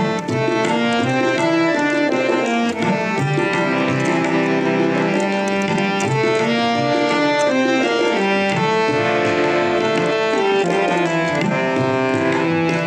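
Harmonium playing a melody in held, stepping notes over a steady tabla rhythm: an instrumental passage of Sikh shabad kirtan.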